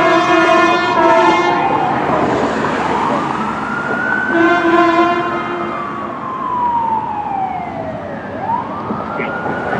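Los Angeles Fire Department rescue ambulance siren wailing in slow rising and falling sweeps, responding to an emergency. Two blasts of a horn cut in over it, one at the start and one about halfway through.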